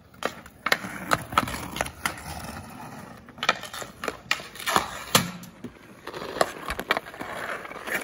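Ice hockey skates scraping and carving on outdoor ice while a hockey stick handles and shoots a puck, giving repeated sharp clacks of the stick blade on the puck and on the ice.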